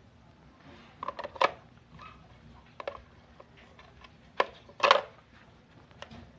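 A battery being handled and set into a portable radio's plastic battery compartment: a scatter of sharp clicks and knocks, loudest at about a second and a half and again around five seconds in.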